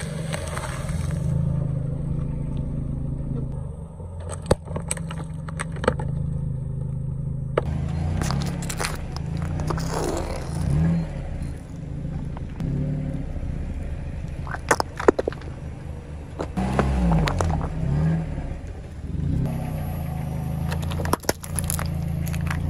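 Car engine running at a crawl as a tyre rolls over and crushes objects on asphalt, including a floral foam block and toothpaste tubes with balloons attached. Several sharp cracks and pops break through the steady engine hum.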